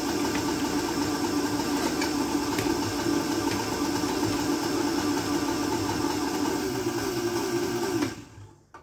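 Electric stand blender motor running steadily as it blends a jar of citrus juice. About eight seconds in it is switched off and winds down quickly.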